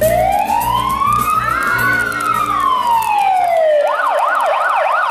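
Fire engine siren: one long wail rising and then falling over about four seconds, then switching to a fast yelp of about three sweeps a second.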